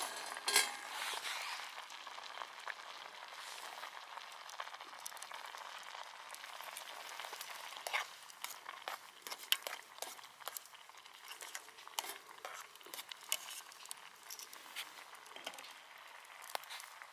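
Food sizzling over a campfire: a steady hiss with sharp pops and crackles, which come thicker after about eight seconds.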